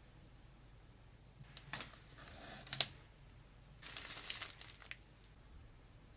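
Plastic packaging crinkling as it is handled, in two bursts a little over a second apart, with a few sharp clicks in the first, the loudest near its end.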